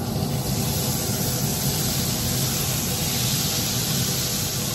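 Butter sizzling and hissing as it is poured onto a hot cast-iron griddle at about 400°F, with a steady low hum underneath.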